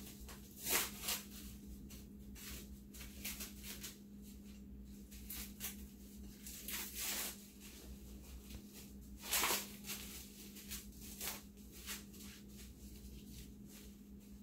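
Faint, irregular handling sounds of minced onion being tipped and scraped out of a small bowl onto raw chicken: soft scrapes and light taps, with a steady low hum underneath.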